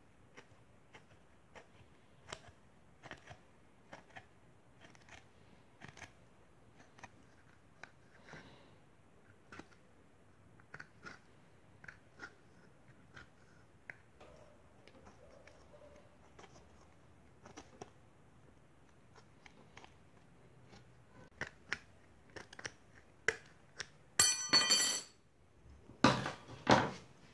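Scissors snipping through thin aluminum sheet: a string of short, sharp snips, cutting a domed disc out of the sheet. Near the end come two louder metallic rattles of the aluminum.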